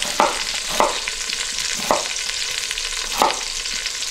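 Chicken thighs sizzling steadily in hot oil as they brown skin side down in an Instant Pot on sauté mode, with four knife strikes on a wooden cutting board as an onion is cut.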